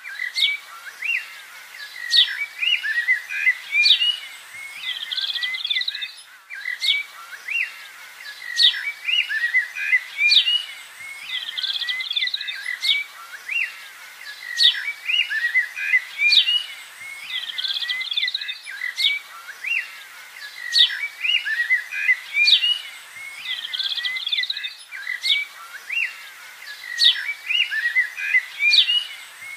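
Birds chirping and singing steadily, with a sharp high call every couple of seconds.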